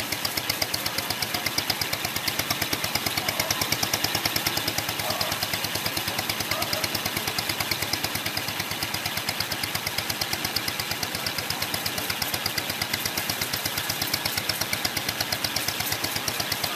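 Small motorboat engine running steadily under way, with rapid, even firing pulses over the churn of water in the wake.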